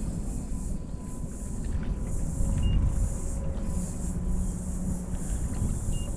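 Steady low rumble of wind and water around a small fishing boat on a river, with a faint steady whine underneath and two short high beeps, one about a third of the way in and one near the end.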